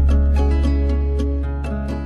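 Soundtrack music: quick, repeated plucked string notes over a deep held bass note that slowly fades.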